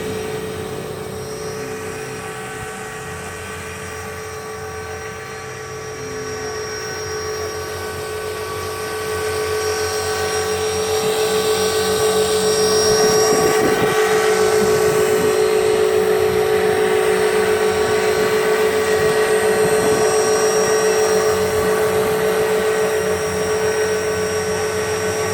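Electric Tarot 450 Pro RC helicopter running: a steady high motor and gear whine with rotor hum, getting louder about ten seconds in and staying loud.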